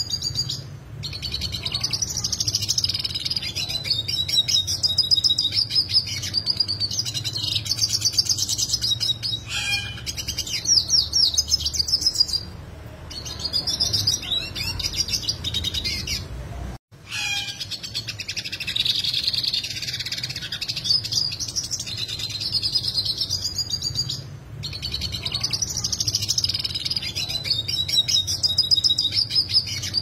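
Yellow siskin singing a long, complex, fast twittering song full of rapid trills, in phrases with short pauses between them. The song drops out for an instant about 17 seconds in, and a faint low hum runs underneath.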